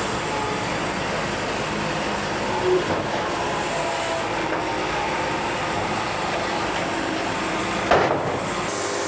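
Wood-Mizer LT70 Wide band sawmill running steadily as its band saws slowly through a knotty log, with a couple of brief knocks, the louder one near the end.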